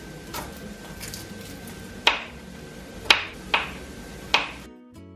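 Small kitchen knife chopping a garlic clove on a wooden cutting board: a handful of sharp, irregular knocks of the blade against the wood. Brief music comes in just before the end.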